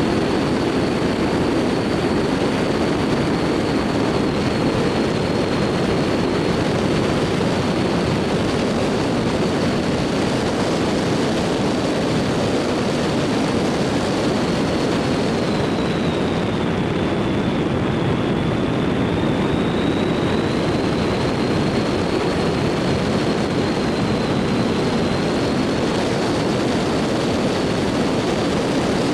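Dacia Logan car driving along a road: steady engine and road noise, with a thin high whine that dips slightly in pitch about two-thirds of the way through and then comes back up.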